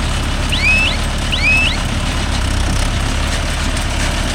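Mahindra Yuvo Tech Plus 585 tractor's diesel engine running steadily. Two short high chirps sound over it, about half a second and a second and a half in.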